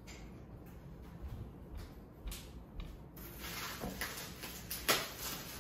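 Packing material rustling and crinkling inside a cardboard shipping box as wrapped plates are pulled out. The rustle starts about three seconds in, with one sharper crackle near the end.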